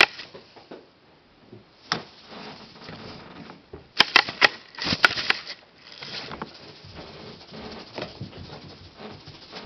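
Kittens at play: soft pattering and scuffling broken by sharp clicks, with one click about two seconds in and a quick run of clicks about four to five seconds in.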